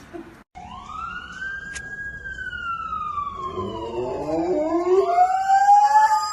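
Huskies howling: a long wail rises and then slowly falls, and from about three and a half seconds in several more wavering howls overlap, growing louder toward the end.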